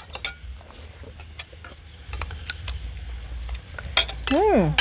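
Metal spoons and forks clicking and clinking against ceramic plates and bowls as people eat, in scattered light taps. Near the end comes a short vocal sound that rises and falls in pitch.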